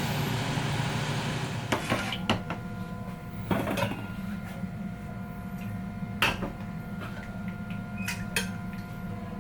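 Dishes and utensils clinking, about five separate knocks spread out, over a steady low hum.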